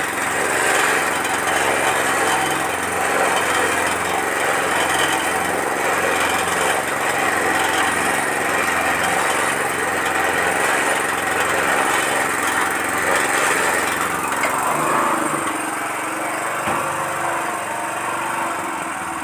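Small stationary engine running steadily, driving a 200 kg paddle-type feed mixer through a gearbox while the paddles churn about 160 kg of feed in a strength test under load. The sound shifts slightly and drops a little after about fourteen seconds.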